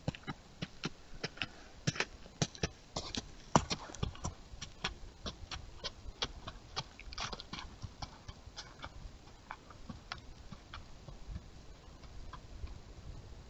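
A deer close by, moving and feeding on dry ground, makes irregular sharp clicks and taps, several a second. They are loudest in the first few seconds and thin out after about halfway.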